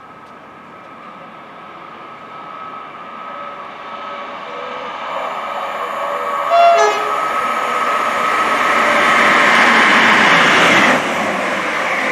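Great Western Railway Class 158 diesel multiple unit approaching and passing through the station at speed, getting steadily louder. It gives one short horn blast a little past halfway. The passing noise is loudest near the end and drops off suddenly as the train goes by.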